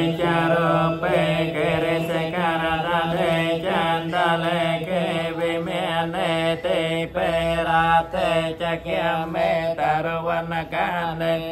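Khmer Theravada paritta chanting in Pali: voices reciting continuously over a steady low droning tone.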